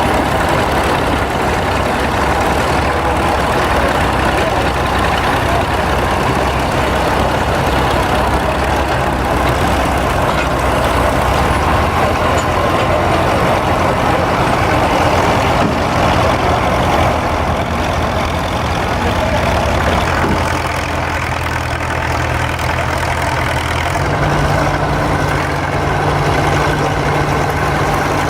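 A heavy machine engine running steadily, its pitch shifting about halfway through and stepping up near the end.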